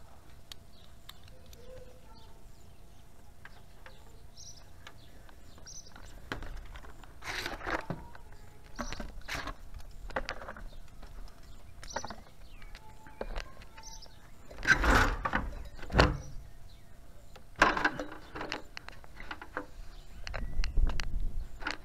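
Scattered knocks and clatter of work gear being handled: plastic traffic cones set down and a wooden ladder taken off a car's roof rack and carried, with a few louder thuds past the middle.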